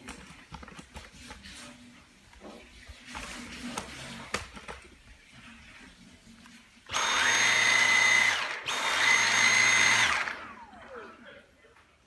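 Dyson stick vacuum motor running in two bursts of about a second and a half each, about seven seconds in: a steady high whine over a rush of air, cut off briefly between them. After the second burst the motor spins down with a falling whine. Before that, only quiet handling knocks and clicks.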